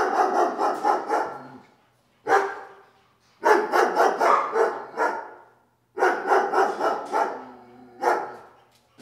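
A dog barking loudly in quick runs of short barks, about four or five barks a second, with brief pauses between the runs.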